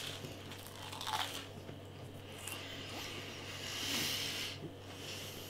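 A person chewing a mouthful of toast topped with chocolate sprinkles, with faint crunching and mouth noises.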